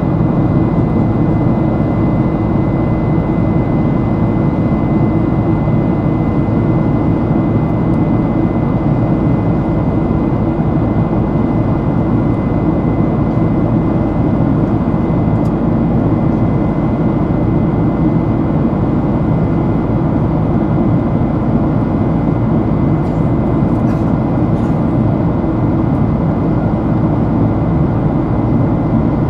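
Jet-airliner cabin noise: the GE CF6 turbofans of a Boeing 767-300 running steadily, heard from inside the cabin as a deep even roar with a thin steady whine above it.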